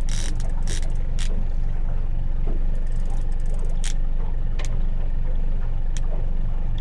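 Boat motor running steadily at low trolling speed, with a few short sharp clicks over it.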